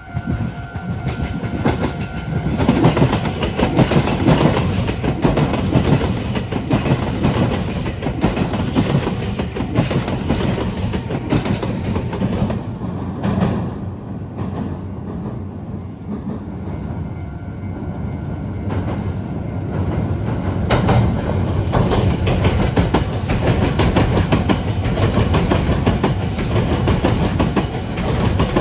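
Meitetsu electric train running through the junction, wheels clattering over the points and rail joints in a steady stream of clicks. The sound eases a little midway and builds again.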